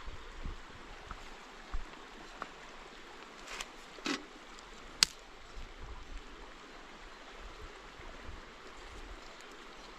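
Steady rush of running water, with a few scattered clicks and knocks and one sharp click about five seconds in.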